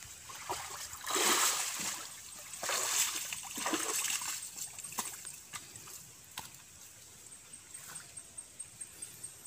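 Shallow river water splashing and sloshing as someone wades through it, in two bursts over the first four seconds, then faint scattered ticks.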